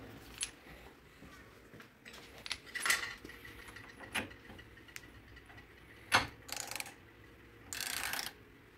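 Long ratcheting torque wrench and other hand tools being handled: scattered metal clicks and knocks, the sharpest about six seconds in, then two short bursts of ratcheting as the wrench is worked on a front suspension bolt near the end.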